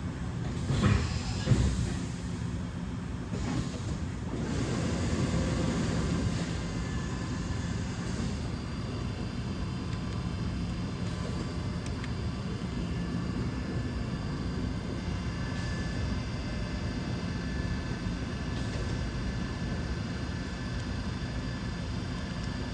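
DMG Mori DVF 5000 five-axis CNC machining center running, a steady hum with faint high whining tones. A few sharp knocks come about a second in, and a louder rush of noise swells and fades from about four to six seconds in.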